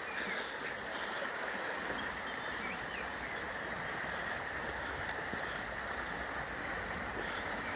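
Steady rush of river water running through a small rapid.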